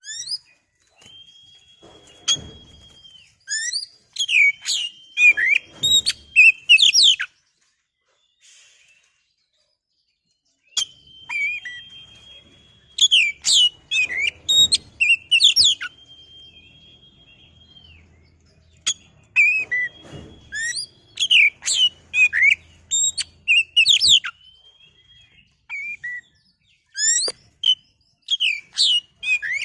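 Oriental magpie-robin (kacer) singing: long, level whistled notes alternating with fast sweeping, chattering phrases, with a pause of a few seconds about a third of the way in.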